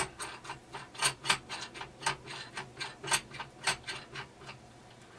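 Metal fitting being turned down the steel rod of a sculpture armature's back-iron support, making irregular rasping clicks of metal on metal, a few a second, that stop about four and a half seconds in.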